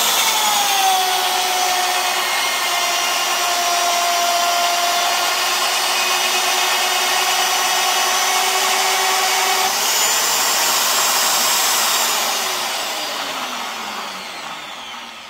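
Rotabroach Element 30 850 W magnetic drill's motor running an annular cutter into a steel guide rail. Its pitch drops at the start as the cutter takes the load, then holds steady. About ten seconds in it rises as the load comes off, and a couple of seconds later the motor winds down, falling in pitch and fading.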